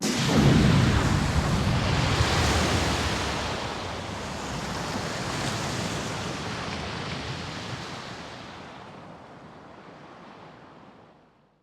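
Dramatic TV sound effect: a loud rush of noise with a deep rumble that starts suddenly, then slowly dies away over about ten seconds.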